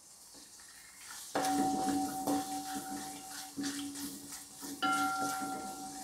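Coconut pieces sizzling in hot coconut oil in a wide metal uruli as they are stirred across the pan, starting about a second in. A steady two-note ringing hum from the pan goes with it, breaking off and starting again every second or so.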